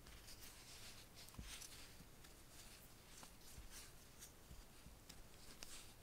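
Faint, irregular scratching and ticking of a small steel-tipped crochet hook pulling fine thread through tiny stitches, with a few soft low bumps from the hands moving.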